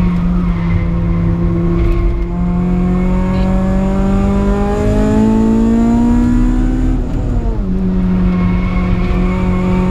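Supercharged Honda K20 four-cylinder engine in a Civic, heard from inside the cabin on track. The engine note climbs steadily for several seconds, falls back sharply about seven seconds in, then holds steady.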